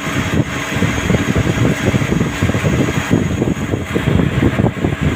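CNC lathe running, its spindle turning the workpiece under a spray of flood coolant: a loud, steady machine noise mixed with coolant splashing.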